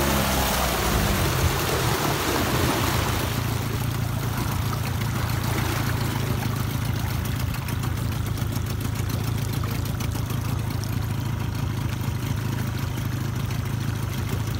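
1987 Mariner 30 hp two-stroke outboard, throttled back from speed and running steadily at low revs as the boat slows. The rush of water and wind is strong at first and fades over the first few seconds.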